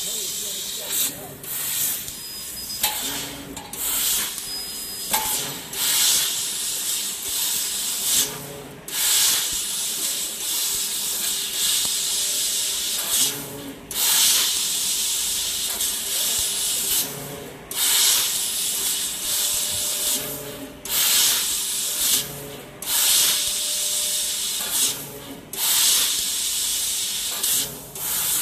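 A 2 kW laser tube cutter cutting thin stainless steel square tube. The assist gas hisses at the cutting nozzle in stretches of a few seconds, each broken off briefly as the head moves between cuts, about ten times in all. A faint steady machine hum runs underneath.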